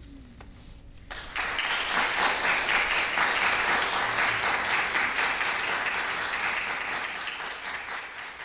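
Audience applauding in an auditorium, starting suddenly about a second in, holding steady, then thinning out near the end.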